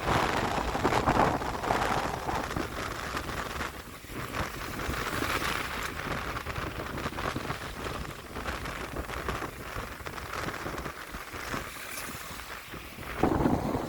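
Strong wind buffeting the microphone: a rough rushing noise that rises and falls in gusts, strongest in the first couple of seconds and again near the end.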